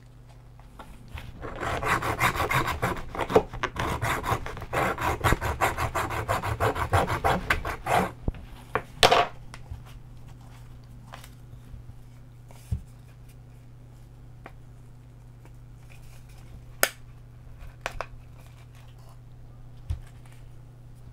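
The paper-wrapped foil winding of a large electrolytic capacitor is twisted and slid out of its aluminium can, giving a rapid run of rubbing and scraping strokes for about eight seconds. A few light clicks follow as the bare winding is handled.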